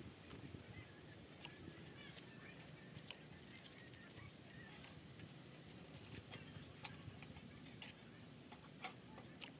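Knife slicing through a shallot held in the hand, faint crisp irregular clicks as each ring is cut off and drops into a stone mortar.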